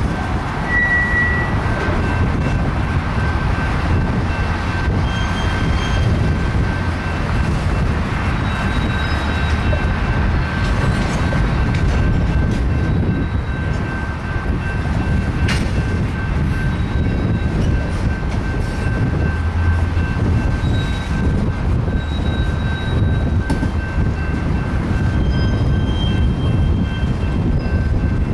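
Freight train's cars (tank cars, covered hoppers, a boxcar) rolling past on yard track: a steady low rumble of steel wheels on rail, with short high-pitched wheel squeals now and then and a single sharp click about halfway through.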